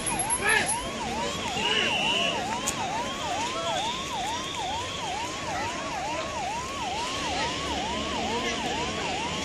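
Emergency vehicle siren on a fast yelp, its pitch sweeping down and back up about two and a half times a second, steady throughout.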